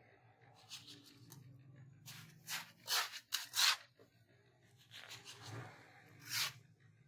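Mason's trowel scraping and scooping a coarse, gritty cement mix and dropping it into a tile mould: a series of short scraping rustles, the busiest a little past the middle and another near the end.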